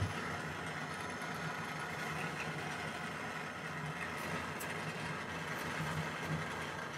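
Jeweller's gas torch burning with a steady hiss while its flame heats a fluxed silver strip for soldering, with a faint low hum underneath.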